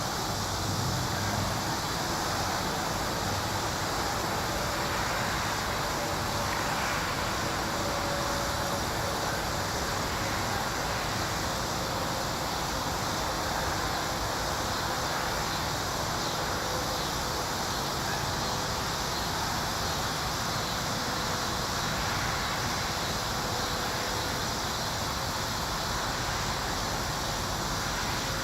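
Steady outdoor background noise: an even hiss and low rumble with no distinct events.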